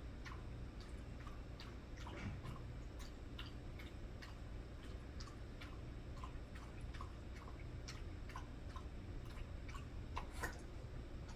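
A pet lapping water from a bowl: faint, irregular wet clicks, about two or three a second, over a low steady hum.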